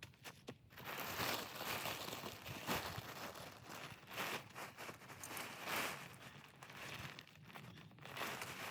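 Irregular rustling and crinkling in uneven swells, like material being handled close by.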